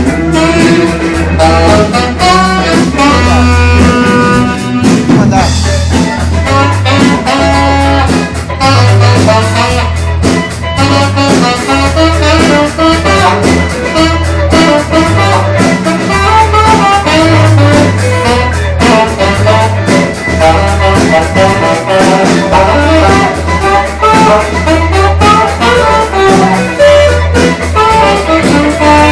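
A live rock band playing loudly, with a bass line moving under sustained instrument notes and steady drum hits.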